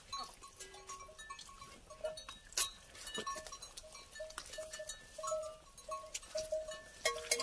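Metal bell on a water buffalo's neck clanking over and over, settling into a steady rhythm of about two strikes a second in the second half.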